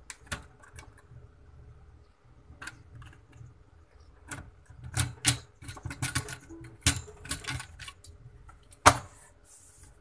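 Intel stock CPU cooler being worked loose from the motherboard: its plastic push-pins clicking and the heatsink rattling as it is twisted and pulled, with a sharp snap about nine seconds in, the loudest of the clicks.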